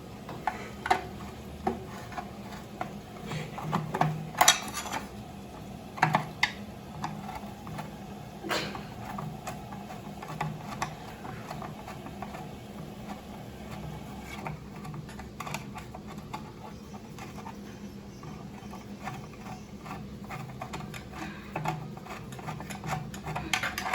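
Screwdriver working a screw out of the mounting of an in-wall toilet cistern's flush plate: scattered clicks, taps and scrapes of the tool against metal and plastic, with a few sharper knocks a few seconds in.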